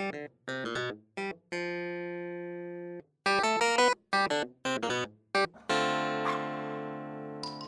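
Background music: a light tune of short, separate notes, twice settling on a long held chord that slowly fades.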